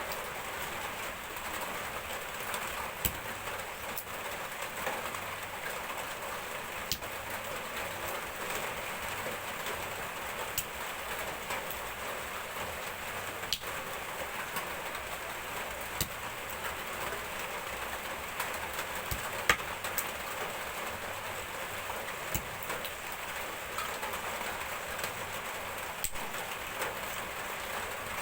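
Steady rain falling, an even hiss, with sharp single ticks scattered through it every second or two.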